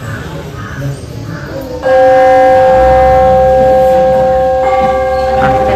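A struck metal bell-like instrument rings out about two seconds in with a clear, sustained, slowly fading tone. It is struck again nearly three seconds later, adding higher ringing partials.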